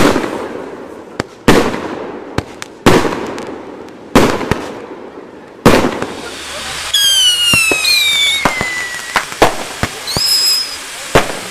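Fireworks going off: four loud bangs about a second and a half apart, each with a long echoing tail. Then a whistling firework gives a long falling whistle among scattered sharp cracks, with a short high whistle and one more bang near the end.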